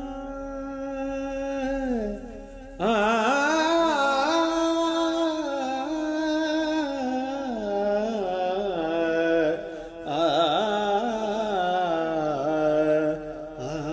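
Background vocal music: a single voice chanting long, held, wavering notes in slow phrases, with a short break about three seconds in.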